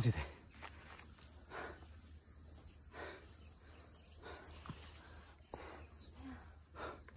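Steady high-pitched insect chorus from the surrounding vegetation, with faint soft scuffs about every second and a half.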